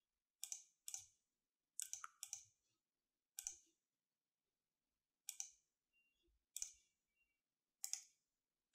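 Computer mouse button clicks, about nine of them at irregular intervals, each a quick double tick of press and release.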